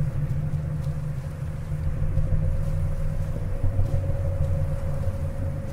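Wind buffeting the microphone: a low, uneven rumble, with a faint steady hum above it.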